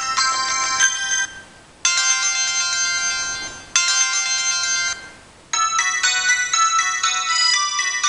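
Mobile phone ringtone playing an electronic melody of high, bell-like notes. It breaks off twice for about half a second between phrases.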